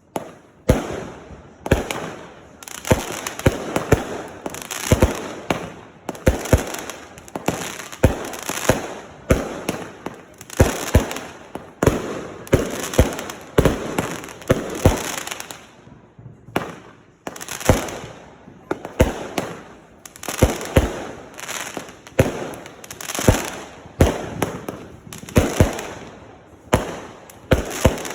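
Consumer fireworks going off in a continuous barrage: irregular sharp bangs, often several a second, each trailing off into a hiss, with a brief lull about sixteen seconds in.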